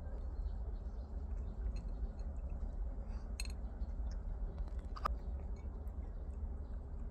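A cat chewing food, with small crunches and clicks scattered over a steady low rumble and hiss.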